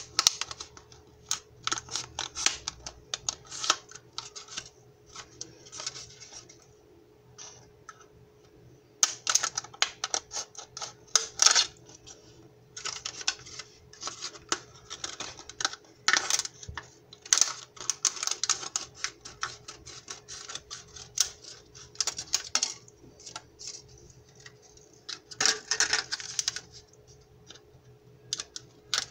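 Small scissors snipping through a thin plastic cup: runs of crisp, rapid clicking snips with short pauses between them.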